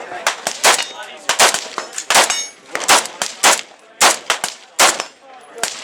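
Gunshots, about ten sharp reports at uneven intervals, some close together, with a short ring after each.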